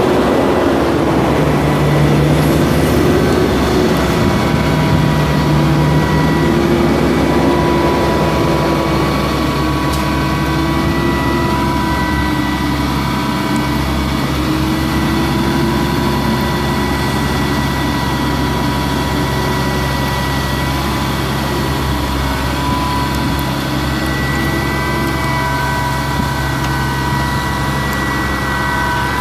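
Caterpillar 3126 inline-six diesel engine of a Freightliner FL80 truck running steadily, with a steady whine above the engine note.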